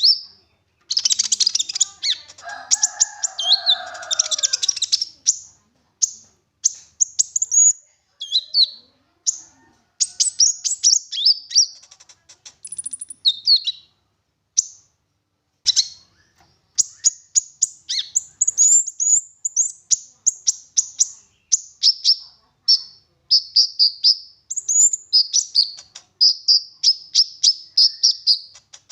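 Konin songbird singing in long, fast phrases of high chirps and trills, packed with imitated song elements, broken by short pauses.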